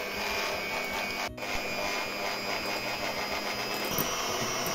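Electric hand mixer running steadily, its twin beaters whipping egg whites into foam in a glass bowl. The motor whine steps up slightly in pitch near the end.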